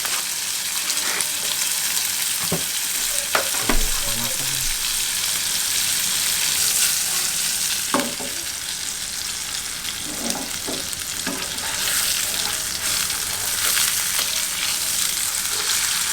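Ribeye steak sizzling steadily as it fries in a hot pan, with a few light knocks scattered through it.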